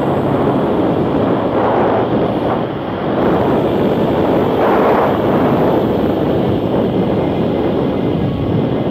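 Riding noise from an onboard camera on a vehicle at road speed: engine running with wind rushing over the microphone, swelling slightly about five seconds in.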